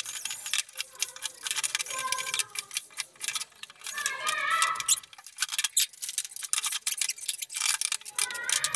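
Rapid, irregular metallic clicking and clinking of hand tools and small fittings being worked on a PVC-pipe chair frame.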